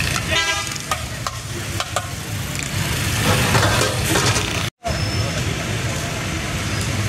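Busy street noise with traffic running, and a short vehicle horn toot about half a second in. The sound cuts out for an instant a little before the five-second mark.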